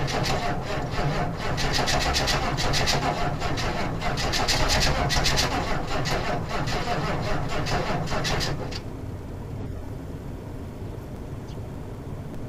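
Straight-piped 6.5L V8 turbo diesel of a 1996 Chevy K1500 cranking and firing unevenly as it struggles to catch on a cold start, a sign of bad glow plugs. It makes a rough, uneven clatter of pulses. About eight and a half seconds in the loud clatter cuts off suddenly, leaving a quieter steady sound.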